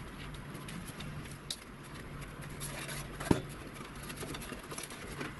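Workbench handling sounds: cardboard rustling and a sheet-steel box being handled, with one sharp knock a little past halfway, over a steady low hum.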